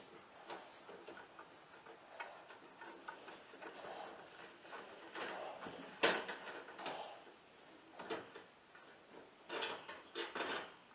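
Irregular light clicks and taps of tools and parts being handled, with a sharper knock about six seconds in and a quick run of clicks near the end.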